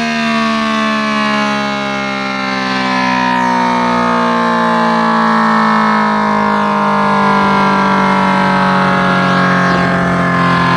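ACA P-10 outdoor warning siren sounding a steady alert tone, its pitch slowly sinking.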